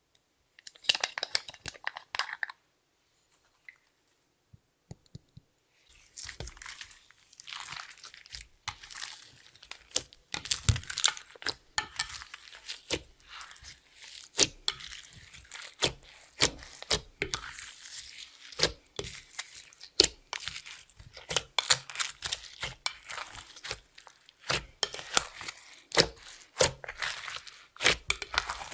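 Clear slime being kneaded, stretched and folded by hand, with sticky crackles and pops. A short flurry comes about a second in, then after a pause the crackling runs on densely from about six seconds in.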